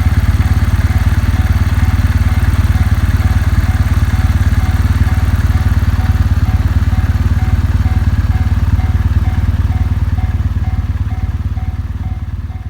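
Kawasaki W650's air-cooled parallel-twin engine idling steadily, with a railway level-crossing warning bell ringing in an even, repeating rhythm over it. The sound fades out near the end.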